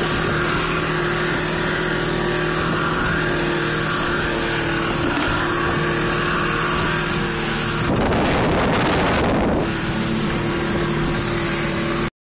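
Shetland 498 motorboat's outboard motor running steadily at speed, with wind and water rushing past. About eight seconds in, a burst of rushing noise drowns the engine for nearly two seconds.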